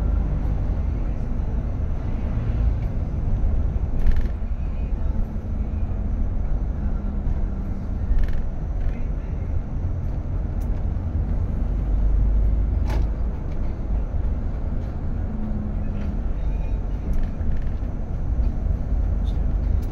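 A road vehicle on the move: the steady low rumble of engine and road noise, with a few short knocks and clicks.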